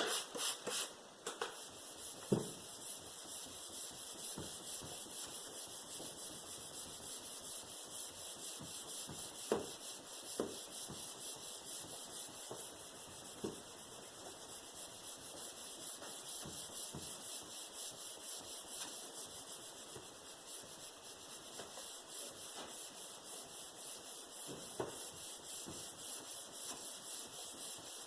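3000-grit sandpaper rubbed back and forth over a plastic headlight lens: a faint, steady, quickly pulsing hiss of fine sanding. There is a sharp click at the start and a few light knocks later.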